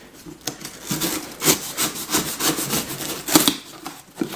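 A blade sawing through the packing tape and cardboard of a shipping box in quick rasping back-and-forth strokes, about three a second, starting about a second in.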